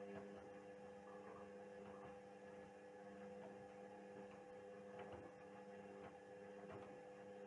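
Indesit WISL 62 washing machine giving off a faint, steady electrical hum early in its wash cycle, with a few faint ticks.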